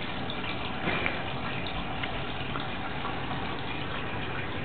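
Steady splashing of running water.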